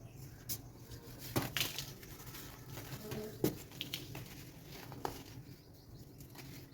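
Chunks of baking soda being crushed and crumbling, a soft gritty crumble with a few sharp, irregular crackles.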